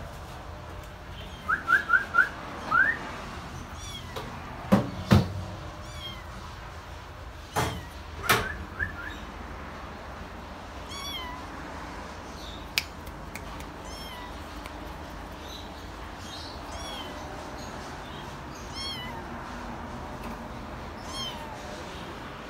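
Kittens mewing in short high squeaks: a quick run of them a couple of seconds in, then fainter ones scattered through the rest. A few sharp clicks or knocks come around the middle, among the loudest sounds.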